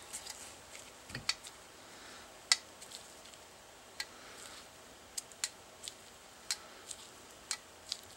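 Hand tap being turned into a hole in a 3D-printed plastic part clamped in a bench vise, cutting threads: a scatter of sharp, separate clicks, about one every half second to a second, the loudest about two and a half seconds in.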